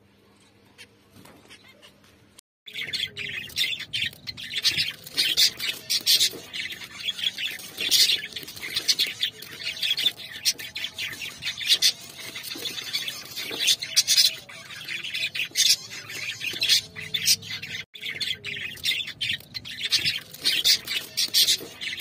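Near quiet for the first couple of seconds, then a group of caged finches chirping busily, many short high calls overlapping one another.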